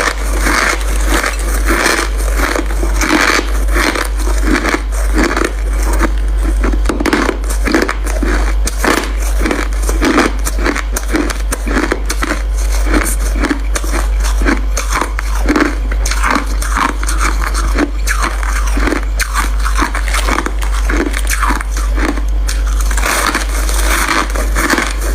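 White crushed ice being bitten and chewed close to the microphone: a dense, continuous run of crisp crunches, several a second, over a steady low hum.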